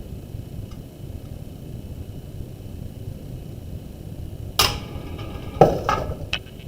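Dynamics carts rolling apart along a track after a spring-plunger release, a steady low rumble, then sharp knocks near the end as they strike the end stops: one knock, then a second cluster about a second later with a brief ringing.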